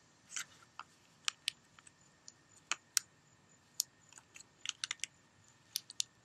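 Irregular light clicks and taps of hands pressing and handling small glass mosaic pieces set in mortar, about twenty sharp ticks scattered unevenly.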